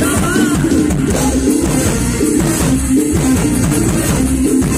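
A live mor lam band playing loud, amplified music with a drum kit keeping the beat, with little or no singing.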